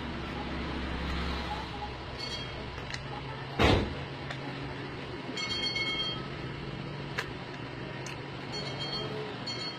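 Outdoor background noise with a low rumble in the first second or so, a single sharp knock about three and a half seconds in, and a few short high squeaks.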